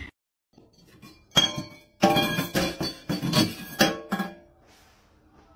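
A cup being pawed by a cat clinking against the edge of a stainless steel sink: one sharp clink, then an irregular rapid run of ringing clinks and taps that stops about three-quarters of the way through.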